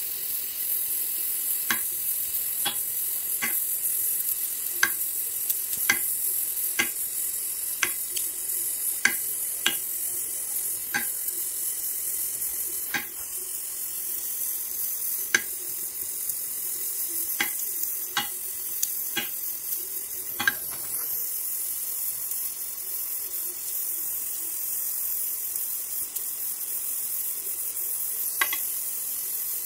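Gas welding torch flame hissing steadily as aluminum filler rod is melted into a motorcycle engine case. Sharp clicks come about once a second for the first twenty seconds, then only now and then.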